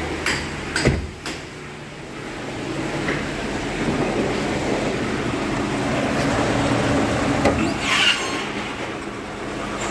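Mercedes 560 SEL's 5.6-litre V8 idling steadily after a long standstill, heard in its open engine bay. A few sharp clicks and knocks come in the first second and a half, and a brief rougher swell comes about eight seconds in.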